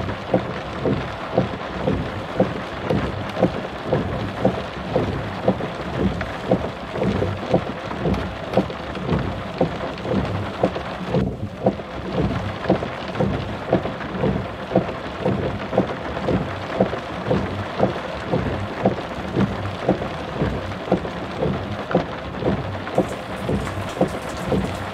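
Steady rushing noise with a low thud repeating about twice a second. The rushing briefly drops out about eleven seconds in while the thuds carry on.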